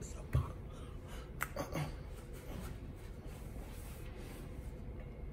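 A man beatboxing with his fist at his mouth: a low thump and a couple of sharp mouth clicks in the first two seconds, then only the steady low hum of the room.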